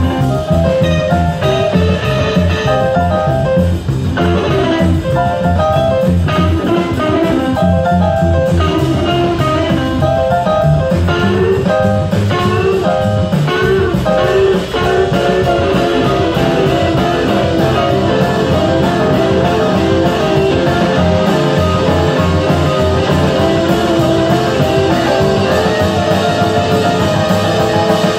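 Live band playing an instrumental passage: fast electric guitar lines over a plucked upright double bass and drum kit.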